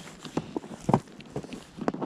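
Four hollow knocks about half a second apart from an inflatable rowing boat and its oars being handled.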